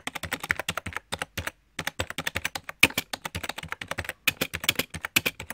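Rapid, irregular keyboard typing clicks, a typing sound effect that goes with on-screen text being typed out, broken by a few short pauses.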